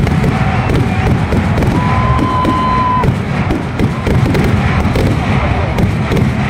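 Kerala temple-festival fireworks (vedikkettu): a rapid, unbroken barrage of exploding shells and crackers, the bangs running together into one continuous rumble.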